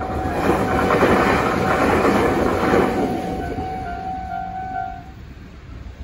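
Electric train on the Tobu Nikko Line passing over a level crossing, its wheels and running noise loudest in the first three seconds and then fading. Under it rings the crossing's electronic warning bell, a steady repeating tone that stops about five seconds in as the warning ends.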